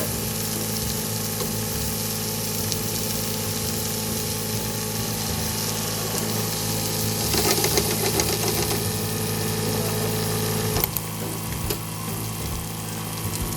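Food sizzling in a frying pan, a steady hiss with a constant low hum beneath it; the hiss crackles more about halfway through and eases off a little near the end.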